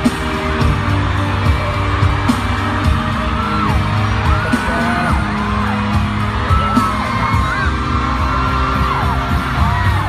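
Live pop concert heard from the audience: loud amplified music over the arena speakers with a steady bass line, and fans' high whoops and yells over it.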